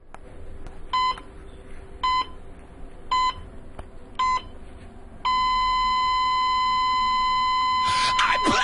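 Electronic beeps: four short high beeps about a second apart, then one long steady beep at the same pitch, like a countdown.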